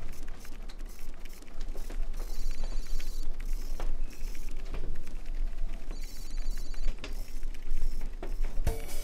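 Office background noise with an electronic telephone ringing twice, each ring under a second, among scattered small clicks and knocks. A music track with drums starts loudly just before the end.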